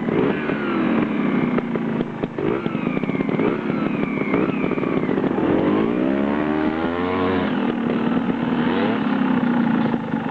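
Trials motorcycle engine revving up and down as the bike is ridden, with a strong climbing rev around the middle.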